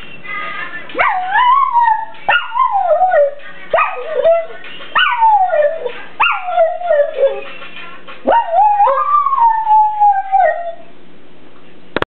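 Kelpie howling along to a mobile phone ringtone: about six howls, each starting high and sliding down in pitch, the last one longer, with the ringtone's melody playing underneath.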